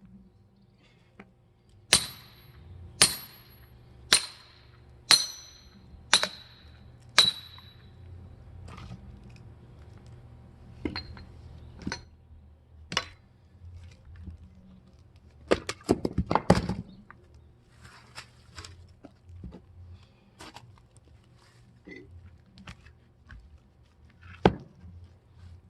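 Six hammer blows on a steel splitting tool, about one a second, each with a short metallic ring, as firewood is split. Then a few scattered knocks, a quick clatter of knocks just past the middle, and one more knock near the end.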